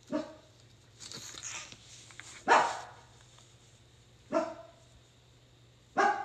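A pet dog barking four times, roughly every two seconds, the second bark the loudest, with a short rustle between the first two barks.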